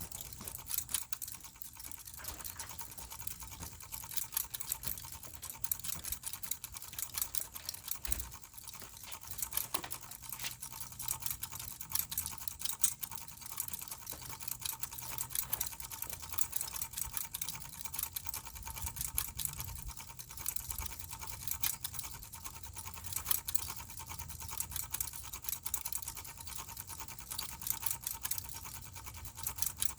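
Mainstays Hugger ceiling fan running, with a steady motor hum under a fast, continuous clicking rattle.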